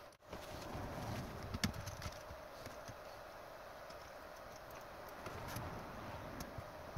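Light, irregular clicks and knocks of a screwdriver and printed plastic parts handled against aluminium extrusion during assembly, the sharpest click about a second and a half in, over a faint steady hum.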